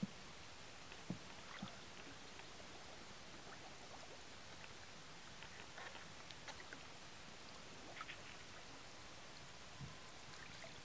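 Faint sloshing and small splashes of shallow pond water as a person wades and sets a perforated plastic fish trap in it, with a few soft knocks over a steady low hiss.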